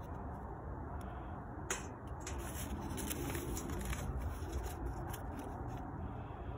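Joss paper being handled and lit with a lighter in a stainless steel bucket: a sharp click a little under two seconds in, then a run of small crackles and paper rustles as the paper catches, over a steady low rumble.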